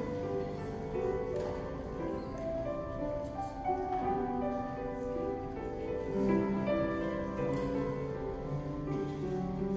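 Slow instrumental church music: held chords on a keyboard instrument, the notes changing every second or two.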